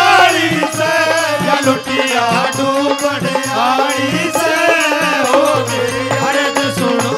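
Live Haryanvi devotional folk music: dholak and matka keeping a steady beat under a melodic lead line.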